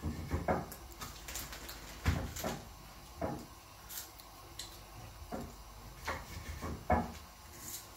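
Irregular knocks of a knife against a wooden cutting board as food is cut by hand, about eight sharp taps spread unevenly, with small clatters between them.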